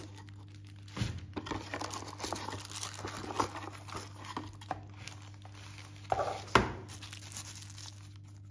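Plastic packaging bags crinkling and rustling as they are handled and taken out of a cardboard box, with a sharp knock about six and a half seconds in.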